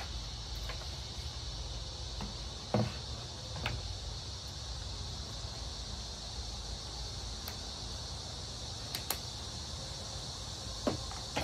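A few scattered clicks and knocks of the Chicco Activ3 stroller's plastic front bumper bar being handled and fitted. They sit over a steady high insect drone and a low background rumble.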